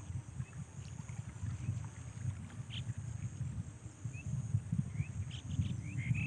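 Low rumble of wind on the microphone, with birds chirping in short high calls several times, more of them near the end.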